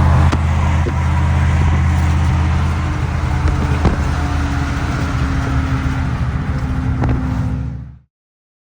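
Fox-body Mustang's engine running steadily while driving, a deep low drone. It cuts off abruptly near the end.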